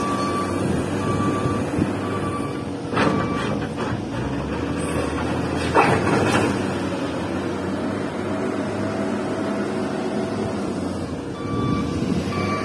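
Heavy diesel machinery running steadily, with a reversing alarm beeping about once a second for the first couple of seconds and again near the end. Two short bursts of hiss come about 3 and 6 seconds in.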